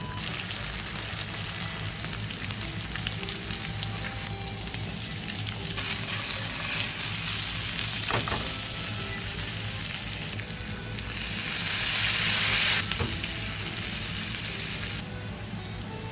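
Potatoes for German-style fried potatoes sizzling in a frying pan, a steady hiss that swells louder twice, about six seconds in and again about twelve seconds in.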